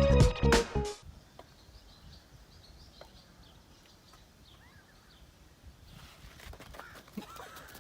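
Music cuts off about a second in, leaving quiet outdoor background with faint, scattered bird chirps that grow a little louder near the end.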